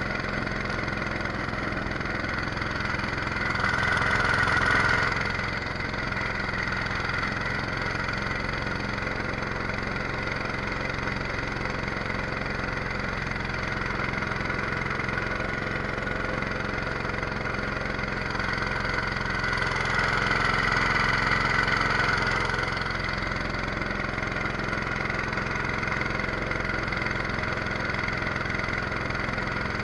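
The 212cc single-cylinder small engine of a jet-drive boat runs steadily. It grows louder twice, around four seconds in and again around twenty seconds in.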